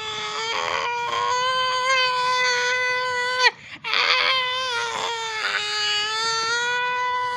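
A person's voice imitating a speeding motorbike engine: one long, held, whining note that falls and breaks off about three and a half seconds in, then starts again and holds steady.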